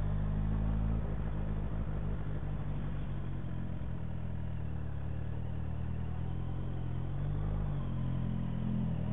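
Motorcycle engine running with its muffler removed, the open exhaust note steady as the bike rolls slowly. The engine note eases about a second in and picks up again near the end.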